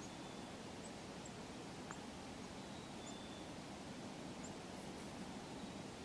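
Chickadees giving faint, short, high-pitched chirps every second or so over a steady low hiss, with one small click about two seconds in.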